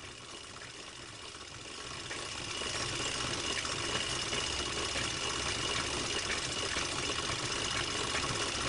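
Film projector running: a steady mechanical whirr with hiss and a thin high whine, growing louder about two seconds in.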